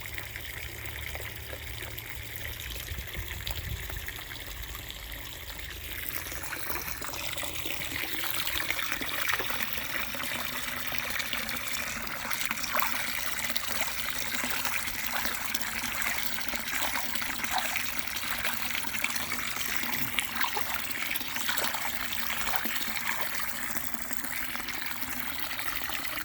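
Water running into a container to fill it, a steady splashing hiss that gets louder about seven seconds in and is shut off abruptly at the end.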